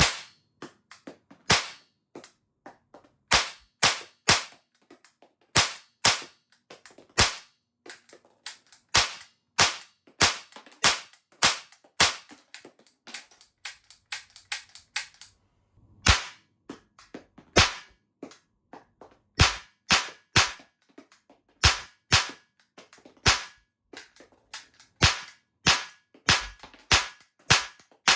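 Tanaka Works SIG Sauer P226 Mk25 Evo2 blowback model gun firing Evolution2 9mm cap cartridges: a string of sharp cap shots, mostly one to two a second, with smaller clicks between some of them and a short pause about halfway through.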